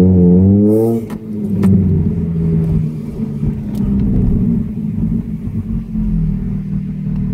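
Ford Focus ST170's 2.0-litre four-cylinder, de-catted and on an RS Mongoose exhaust, heard from inside the cabin. The revs rise briefly in the first second, then drop sharply as the throttle closes, with a couple of sharp pops. It then settles into a steady low drone at low revs.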